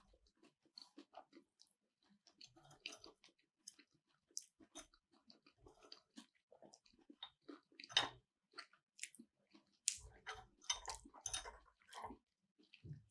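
Close-miked chewing and eating of sushi: soft, irregular wet mouth clicks and bites, a little louder about eight seconds in and again between ten and twelve seconds.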